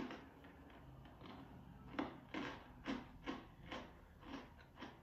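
A series of short light knocks and rustles, about seven in the last three seconds, from things being handled.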